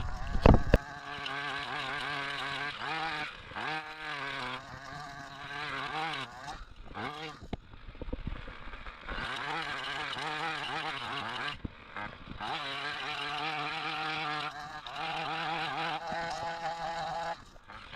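Gasoline chainsaw engine running, its pitch rising and falling as the throttle is worked, easing off briefly a few times.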